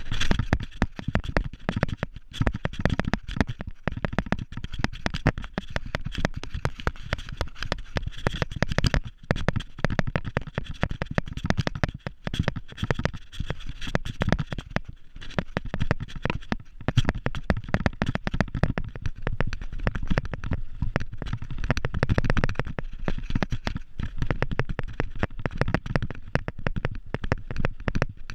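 Mountain bike descending a rough, rocky grass trail: a continuous fast rattle and clatter of the bike and camera mount jolting over the bumps, with a low rumble underneath.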